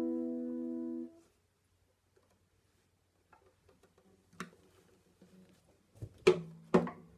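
The final chord on an acoustic guitar rings out and is damped about a second in. Later come a faint knock and then two sharp knocks close together, each with a brief ring of the strings, as the guitar is handled.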